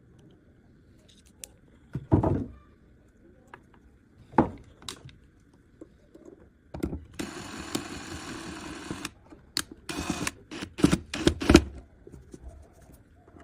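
Small-scale workshop sounds of hand work on a wire connection: scattered knocks and clicks, a steady whir for about two seconds midway, then a quick run of sharp clicks near the end.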